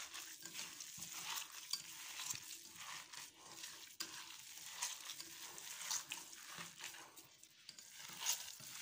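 Hands kneading raw minced meat with onion and spices in a stainless steel bowl: faint, irregular wet squishing and squelching.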